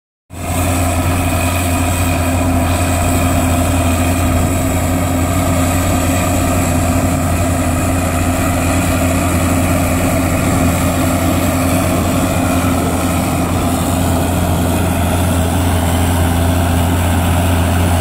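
Caterpillar RM-300 road reclaimer's heavy diesel engine running steadily as the machine works along the roadbed, a continuous low hum that holds the same pace throughout.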